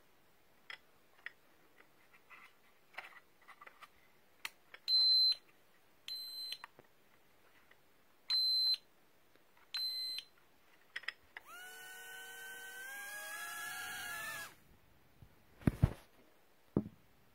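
Cheerson CX Stars mini quadcopter and its controller: a few faint clicks, then four short high electronic beeps, then the drone's tiny motors spin up with a rising high whine that holds for about three seconds and stops. Two low thumps follow near the end.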